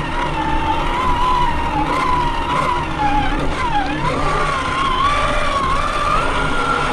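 Traxxas Summit RC truck's 4S brushed electric motor and gearbox whining as it drives, the pitch wavering with the throttle, dipping briefly about four seconds in and climbing near the end, over a low rumble.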